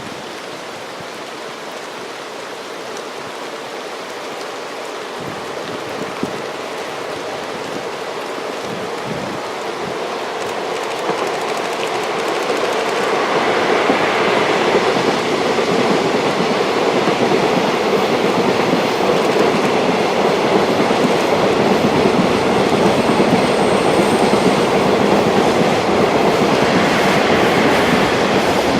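Freight train hauled by JR DD51 diesel-hydraulic locomotives approaching and passing, wheels clattering over the rail joints. It grows louder over the first half or so, then stays loud and steady.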